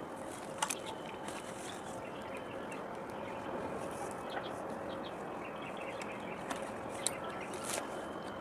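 Steady harbour background noise with a faint, even hum, a few faint bird chirps, and short sharp clicks about a second in and twice near the end.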